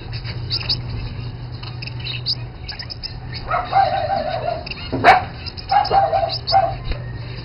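Small cage finches chirping in quick, short, high notes, joined from about halfway by lower, drawn-out calls. One sharp click about five seconds in, over a steady low hum.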